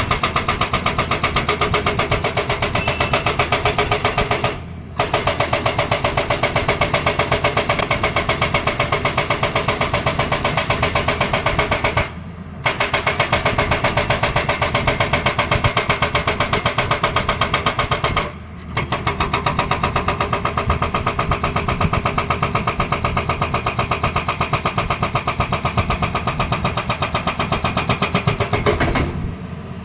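Tata Hitachi excavator's hydraulic breaker hammering with rapid, even blows in long runs, stopping briefly three times and again near the end.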